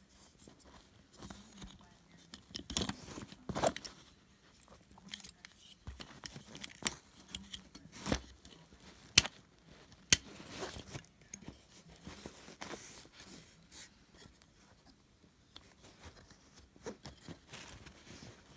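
Metal clicks and clinks from a stainless multi-tool hatchet being handled, its folding handles and tools swung open and clicking into place, with rustling of hands and metal on fabric. Two sharp clicks about nine and ten seconds in are the loudest.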